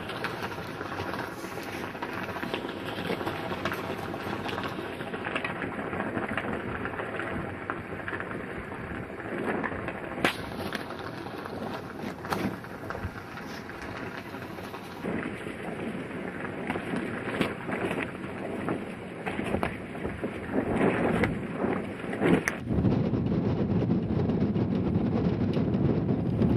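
Strong wind buffeting the microphone: a steady rushing noise with frequent crackles, growing louder in gusts near the end.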